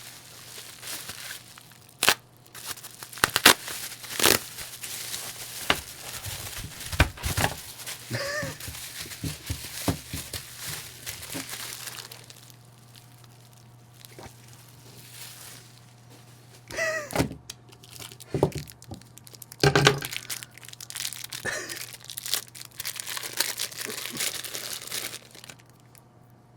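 Fragrance packaging being opened by hand: wrapping and cardboard tearing and crinkling, with irregular clicks and knocks as the boxes are handled and a few short squeaks. There is a quieter stretch around the middle.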